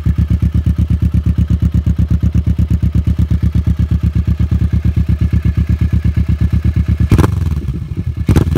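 Motorcycle engine idling with an even, loping beat of roughly ten pulses a second, then two sudden loud bursts about a second apart near the end.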